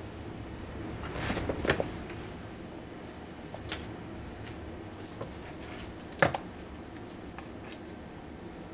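Cats scrambling about in a cardboard box: claws and paws scratching and rustling on the cardboard, with a flurry of scrapes a second or two in and one sharp knock about six seconds in.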